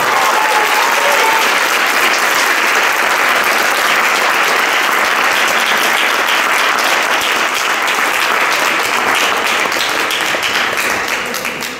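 Audience applauding steadily, easing off and dying away near the end.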